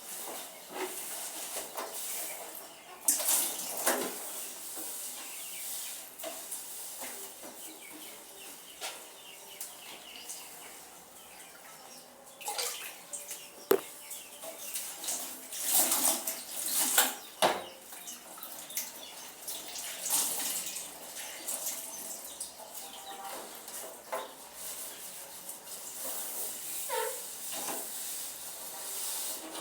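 Dishes being hand-washed in a basin of standing water: water splashing and sloshing in uneven surges, with a few sharp clinks and knocks of the utensils.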